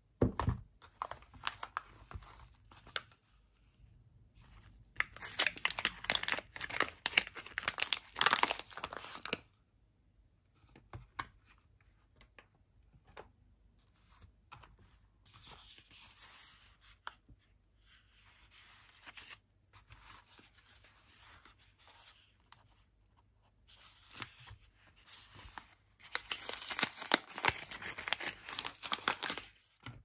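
Bar-soap wrappers being torn open and crinkled by hand. There are two loud spells of tearing and crackling, one about five seconds in and one near the end, with quieter rustling and handling between.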